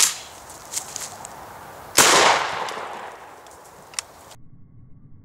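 A single shotgun blast from a pump-action shotgun firing a 2¾-inch shell of #8 birdshot, about two seconds in, with a tail that fades over the next second and a half. A short click follows about two seconds later.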